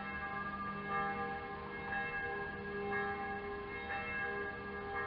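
Bells ringing: several overlapping, sustained tones, with a fresh strike roughly once a second.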